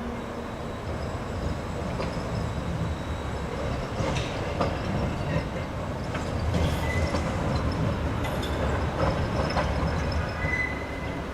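Tram running on street rails: a low rumble that swells in the middle, with several sharp clicks and a brief thin high-pitched squeal near the end.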